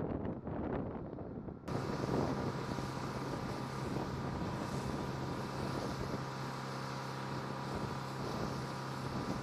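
Wind buffeting the microphone, then, cutting in abruptly about two seconds in, a steady engine drone on an airfield ramp, with a constant low hum and a fainter higher whine that hold unchanged.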